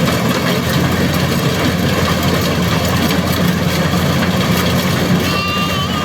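Engine of a harvesting machine running steadily, a constant low hum under a wash of mechanical noise. About five seconds in, a brief thin, wavering high tone sounds over it.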